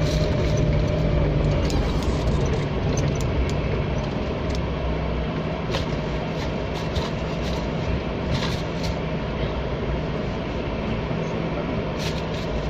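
4x4 vehicle driving slowly over a rough dirt track. The engine drones steadily underneath, with scattered knocks and rattles from the vehicle bouncing on the uneven ground.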